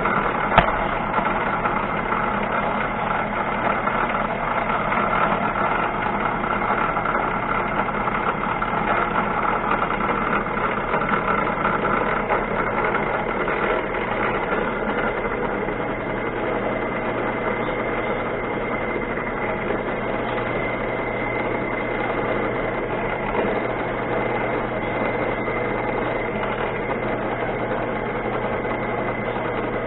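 Small benchtop machine tool running steadily with a fixed whine while a 2.5 mm drill bit cuts a through hole in a metal part, lubricated with cutting oil. A single click about half a second in.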